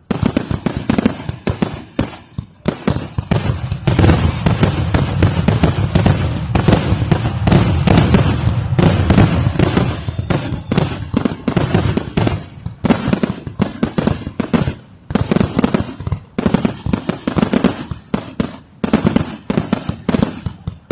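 Fireworks going off in a rapid, continuous barrage of bangs and crackles, starting suddenly. The bangs are densest and boomiest in the first half, then come as a quick run of separate cracks.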